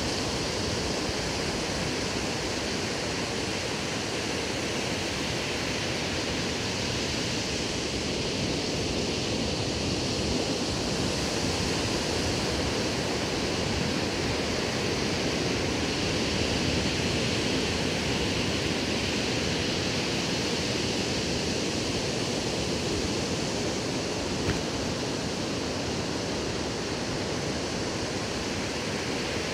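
Ocean surf breaking along a sandy beach: a steady rushing wash that swells and eases slowly.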